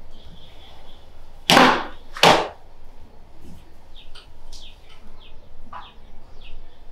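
Two quick whoosh sound effects, the loudest events, about one and a half and two and a quarter seconds in. They are followed by faint, short, high chirps that drop in pitch.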